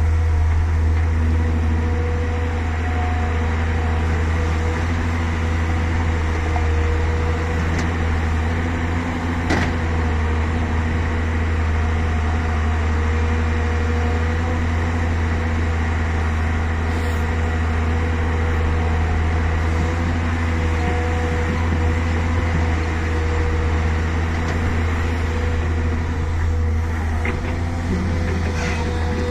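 Volvo EC380DL excavator's diesel engine running steadily, a constant low drone, with a single sharp knock about nine and a half seconds in.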